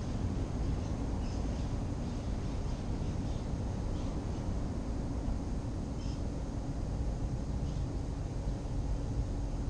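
Outdoor wind rumbling on the microphone, a steady low buffeting, with a few faint high chirps.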